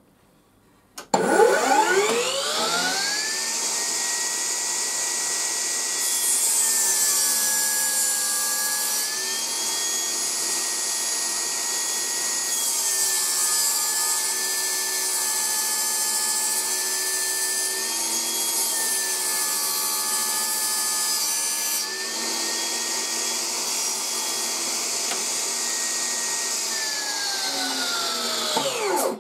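Battery-powered HiKOKI C3610DRJ table saw spinning up with a rising whine about a second in, then running steadily. Its pitch sags three times, with added cutting hiss, as the blade rips a board along the grain. It winds down with a falling whine near the end.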